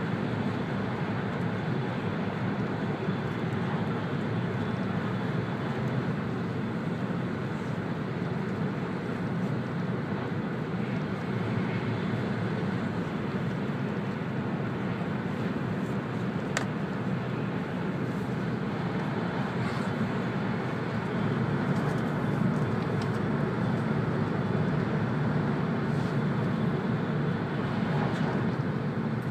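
Interior running noise of an E2-series Shinkansen travelling at speed: a steady low rumble with no breaks, growing slightly louder about two-thirds of the way through.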